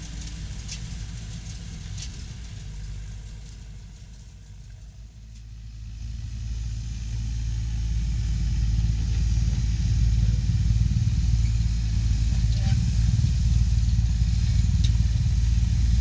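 Farm machine's diesel engine running steadily, fading a little and then growing louder from about six seconds in as the machine comes closer.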